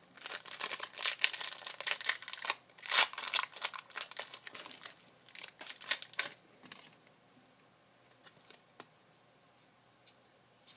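Foil Pokémon TCG booster pack wrapper crinkling and tearing as it is opened, for about six and a half seconds, then a few faint ticks.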